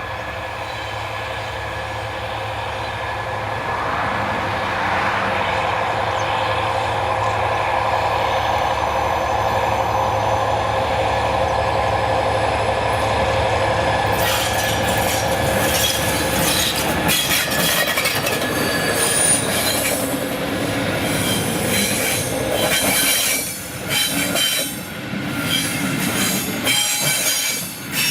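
Train hauled by steam locomotive 18 201 rolling steadily, then from about halfway its brakes squealing, with high, shrill screeches that come and go as it slows.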